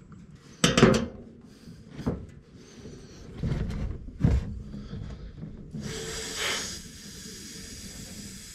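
A few knocks and clunks of parts being handled, then a steady hiss starting about six seconds in as air is forced into the fuel system to pressurize and prime it.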